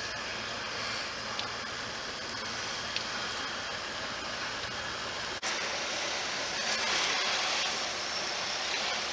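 Steady rushing outdoor noise with a low hum beneath it. The sound changes abruptly about five and a half seconds in, where the low hum drops away.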